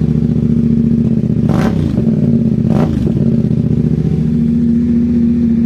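Yamaha Ténéré 700's 689 cc parallel-twin engine idling through a short Yoshimura-style aftermarket slip-on silencer, with two quick throttle blips about a second and a half and nearly three seconds in. It runs loud, with a thumping note likened to a helicopter.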